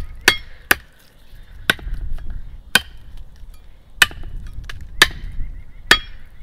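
Cold Steel Bushman all-steel knife chopping into a thick vine on a wooden stump: about seven sharp chops at an uneven pace, some with a brief ring after the blade strikes.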